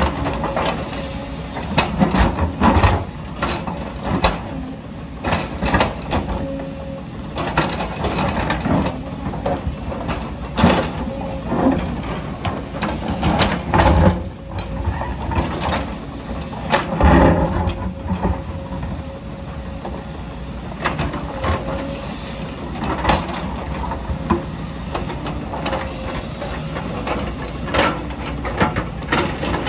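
A JCB tracked excavator's diesel engine runs steadily while its steel bucket digs through rocky ground, with frequent clanks, knocks and scraping of stones against the bucket.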